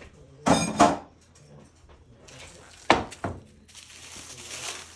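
Handling a frozen meatloaf on a metal tray: a short clatter about half a second in, a sharp knock with a brief ring about three seconds in, then a rustling hiss near the end.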